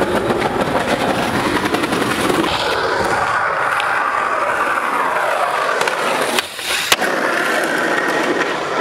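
Skateboard wheels rolling steadily over rough pavement, with a brief dip and one sharp click about seven seconds in.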